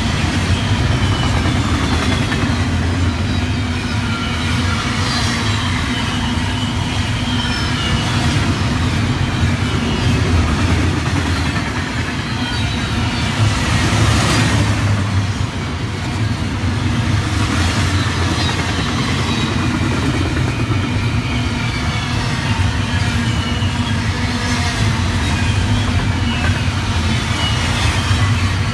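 Double-stack container train's well cars rolling past at speed, a steady rumble of wheels on rail, with short high-pitched squeals from the wheels scattered through it.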